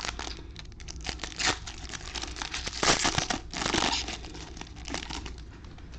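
Trading-card pack wrapper crinkling and tearing as the pack is opened, in irregular rustling bursts with the loudest about three seconds in.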